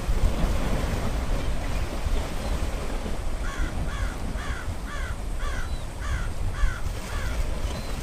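A crow cawing in a quick run of about eight calls, two a second, each falling in pitch. Wind rumbles on the microphone throughout.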